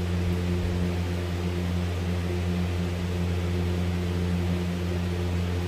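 Steady mechanical hum, a low drone with a faint hiss over it, unchanging throughout.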